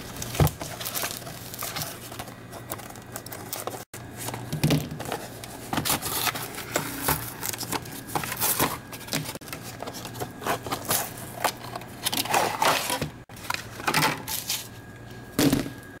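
Scissors cutting through a hard plastic clamshell blister pack, and the stiff plastic and cardboard backing being crinkled, bent and pulled apart to free a multitool. The sound is a stream of irregular snips, crackles and scrapes.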